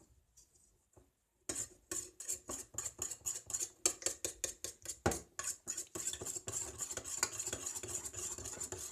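A spoon stirring glue in a bowl for slime, scraping and clicking against the bowl in rapid strokes, several a second, starting about a second and a half in.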